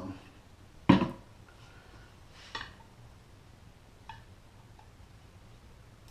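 Small metal parts clanking on a workbench during a carburetor teardown. One loud sharp clank about a second in, then a lighter clack and a faint tick.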